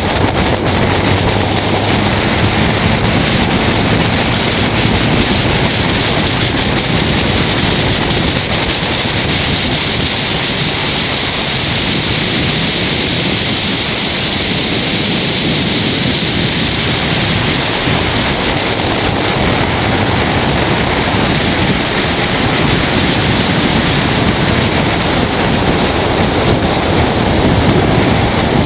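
Race car at speed on a circuit: a loud, steady rush of wind over the outside-mounted camera's microphone, with the car's engine drone underneath. The engine drone comes through most clearly in the first few seconds and again near the end.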